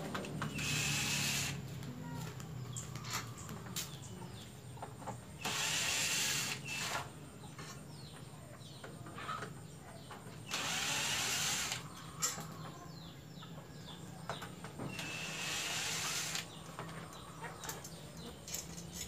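Cordless drill-driver running in four short bursts of about a second each, a few seconds apart, backing out the screws that hold a subwoofer speaker in the car's boot. Small clicks and knocks of the speaker and its mount being handled come between the bursts.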